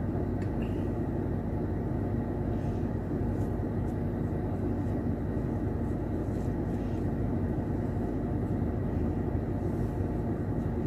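Steady low hum of a car running at idle, heard inside its cabin.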